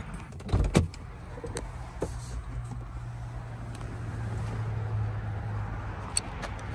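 A motor vehicle's engine running nearby: a steady low hum that grows a little louder around the middle. A couple of sharp knocks come just after the start.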